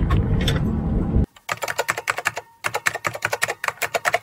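Low rumble of an airliner cabin on the ground, cut off abruptly about a second in by rapid, irregular computer-keyboard typing clicks: a typing sound effect for on-screen text being typed out.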